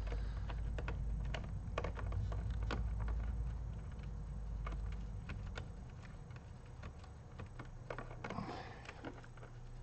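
Irregular light clicks and taps of hands handling a laptop's plastic underside while its rubber foot strip is checked for hidden screws, with a short scrape near the end.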